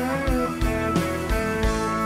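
Live rock band playing an instrumental intro: strummed acoustic and electric guitars with bass guitar, gliding guitar notes, and regular kick-drum beats.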